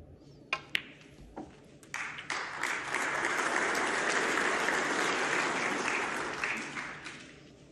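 Snooker balls clicking sharply twice about half a second in, as the cue strikes and the cue ball hits the black, with a softer knock a moment later. Then a hall audience applauds, starting about two seconds in and fading near the end, for the pot that puts the frame beyond the opponent's reach.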